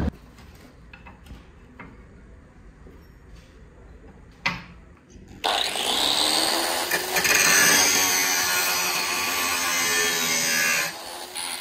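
A few faint knocks and one sharp thump, then about five seconds in an angle grinder starts and spins up. It then grinds steel with a harsh, steady rasp, easing briefly near the end.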